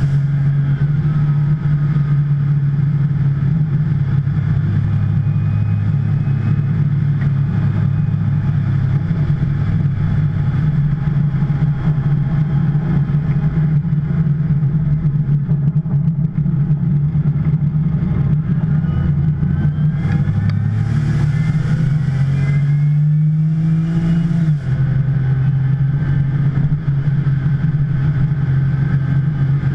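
Porsche 911 Turbo's twin-turbo flat-six running at low, steady engine speed, driven gently after losing turbo boost. Near the end the revs climb for a few seconds, then drop sharply with an upshift.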